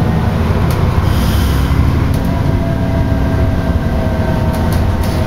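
Steady low engine and road rumble heard inside the upper deck of a moving double-decker bus, with a faint whine in the middle and a few light rattles.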